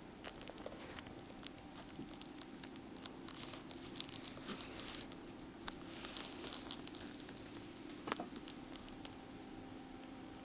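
Light crackling and tapping close to the microphone, busiest in the middle, over a faint steady hum.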